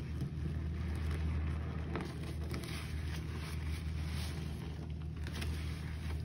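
Large sponge squeezed and wrung out by rubber-gloved hands in a tub of sudsy water: squelching, dripping and splashing, with a few sharper squishes. A steady low hum runs underneath.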